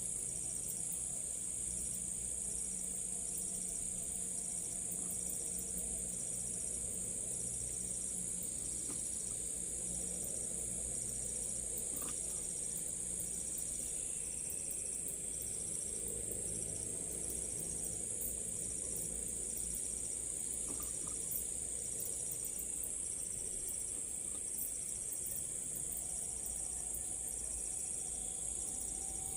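Evening insect chorus, crickets chirping: a constant high shrill with a second chirp pulsing at an even rhythm, roughly one to two a second.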